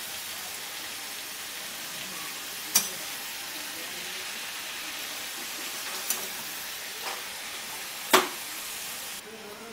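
Cut bottle gourd sizzling in a pan of hot oil and spice paste as it is stirred with a spatula. The spatula clacks against the pan a few times, loudest near the end.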